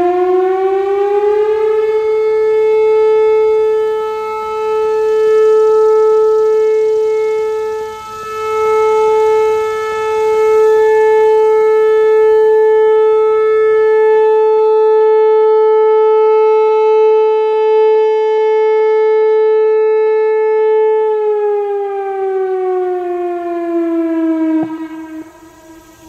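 Whelen WPS-4004 electronic speaker siren sounding its Alert signal during a siren test: one steady tone that rises in pitch over the first second or two and then holds. The loudness swells and dips as the rotating horn array turns, and near the end the tone glides down and cuts off.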